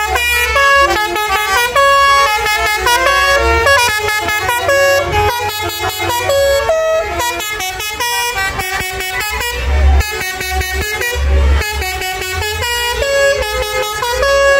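Indonesian tour buses' basuri musical air horns playing melodies over one another in a horn battle, the tunes stepping quickly from note to note without pause.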